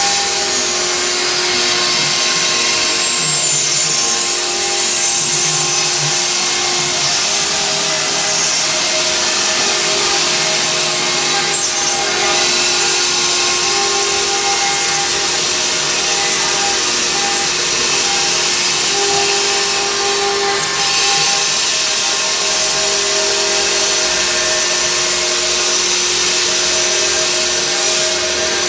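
Stone-working CNC router running: its spindle gives a steady whine under a continuous grinding hiss as the tool works the stone.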